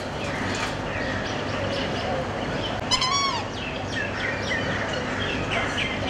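Many birds chirping and calling at once, a steady mixed chorus of short chirps and pitch glides. About three seconds in, one louder call rises and then falls in pitch.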